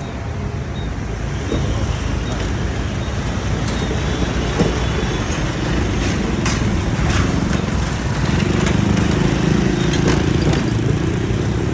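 Steady low rumble of heavy vehicles, growing louder from about eight seconds in, with a few sharp clacks.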